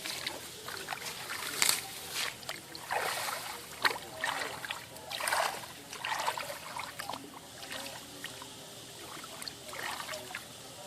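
Water splashing and sloshing in irregular bursts, with a few sharp knocks, dying down near the end.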